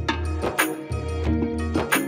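Background music with a steady beat over held bass notes.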